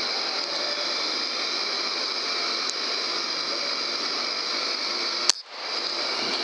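Steady hiss of background noise, then about five seconds in a single sharp crack: the suppressed Gamo Urban PCP air rifle firing. The sound drops out briefly right after the shot.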